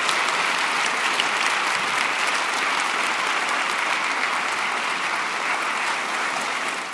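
A large audience applauding steadily, a dense patter of many hands clapping, fading out at the very end.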